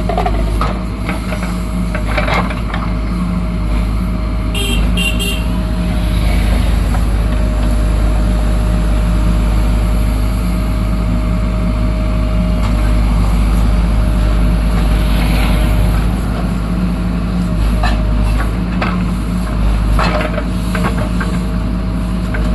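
JCB backhoe loader's diesel engine running steadily under load while it moves soil, with occasional knocks. A brief high-pitched beeping comes about five seconds in.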